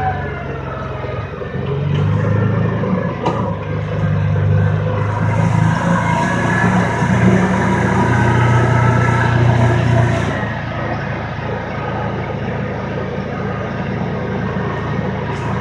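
Kawasaki Teryx S LE side-by-side's 783 cc V-twin engine running while the machine is ridden, its pitch rising and easing with the throttle several times.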